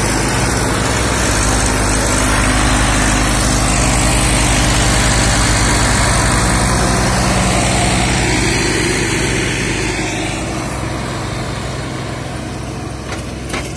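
Two Massey Ferguson tractors, a 241 DI and a 245 DI, with three-cylinder diesel engines, running hard under heavy load as they pull a trolley of about 100 quintals of sand up a sandy bank. The engine note is steady, then slowly fades over the last few seconds.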